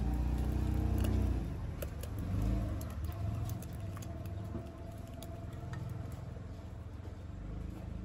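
Low engine rumble of a vehicle, loudest for the first second and a half and then fading to a lower hum. Scattered light clicks and taps come from a steel pot's rim against a glass jar as thick jam is poured into it.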